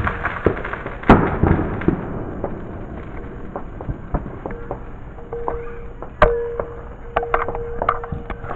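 Fireworks going off: a loud bang about a second in and another about six seconds in, followed by a quick string of sharp pops and crackles near the end.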